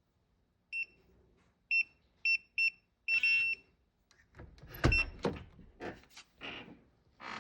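Electronic smart lock keypad beeping as a passcode is keyed in: four short beeps, one per key press, then a longer tone as the code is accepted. About four seconds in come clicks and knocks from the lock and door handle as the door is opened.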